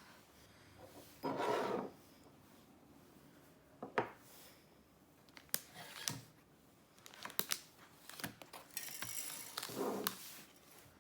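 Unboxing handling noises: two short bursts of packaging rustling, about a second in and near the end, with scattered sharp clicks and taps of small hard items being handled.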